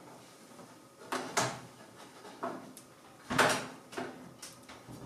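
Irregular knocks and clicks of a thin tool being worked into the gap of a Panasonic microwave's door, rattling the door as it probes for the broken latch. The loudest knock comes about three and a half seconds in.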